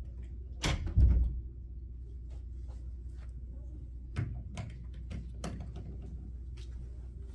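A heavy thump about a second in, then a scattered series of short, light clicks and taps, over a steady low hum.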